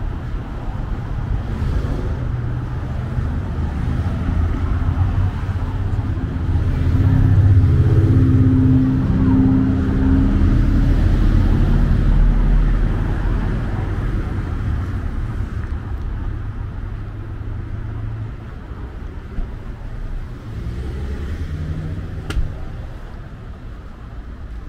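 Road traffic on a busy highway, cars passing one after another close by, loudest as a vehicle goes by about seven to thirteen seconds in. A short sharp click sounds near the end.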